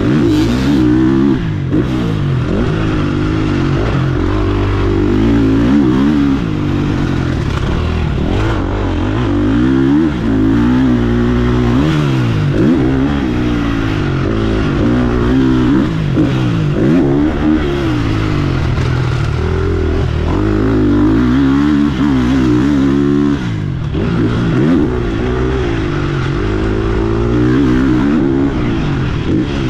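GasGas 350 MCF four-stroke single-cylinder motocross engine, heard from on board the bike, revving up and dropping back again and again as the rider works the throttle around the track, its pitch climbing and falling every second or two.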